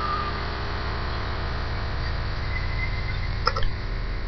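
Steady low rumble, with one short, sharp click about three and a half seconds in as a small hand-held object taps the side panel of a train car.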